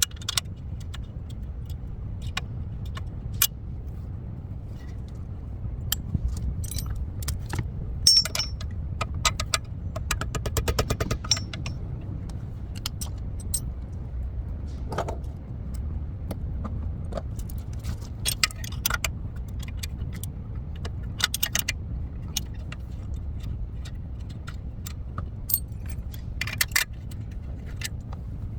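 Metal hand tools and suspension parts clinking and clicking, with a quick run of rapid clicks about ten seconds in, over a steady low rumble.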